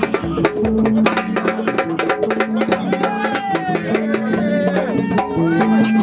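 Dakka marrakchia music: small taarija hand drums and hand claps beating a fast, dense rhythm over a steady low held tone, with a voice singing over it from about halfway through.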